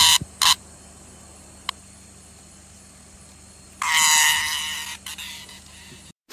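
Green katydid (bush cricket) stridulating while held on a hand: two short raspy chirps at the start, then a loud, bleat-like buzzing rasp lasting about a second near the middle, fading off.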